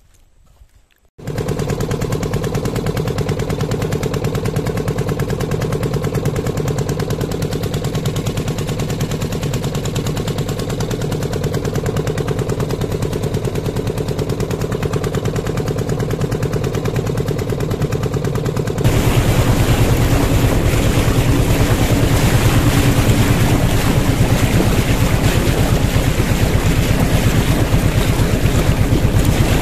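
Motorboat engine running steadily with a rapid, even pulsing, starting abruptly about a second in. About two-thirds of the way through it grows louder, with water rushing and splashing along the bow.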